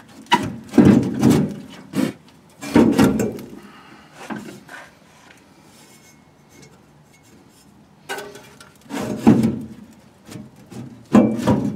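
Fuel tank of a 1951 Lanchester LD10 being wiggled loose under the car, knocking and scraping against the chassis in four short bouts of about a second each, with a quieter stretch in the middle.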